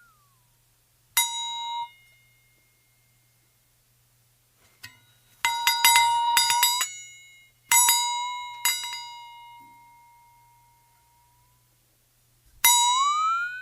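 A run of bell-like ding sound effects: a short ding, then a quick flurry of rapid strikes, then a ding that rings on and fades slowly, and near the end a ding whose pitch bends up and falls back, a comic boing-like effect.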